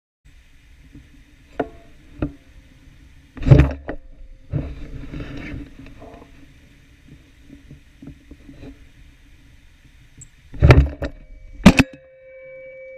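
Beretta Urika AL391 gas-operated semi-automatic shotgun firing three shots, recorded from a camera mounted on the gun: one about three and a half seconds in, then two about a second apart near the end. Between the shots there is the rumble and knocking of the gun being swung.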